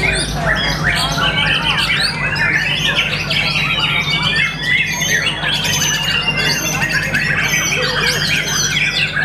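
White-rumped shama (murai batu) singing a fast, continuous song of varied whistles, chirps and trills.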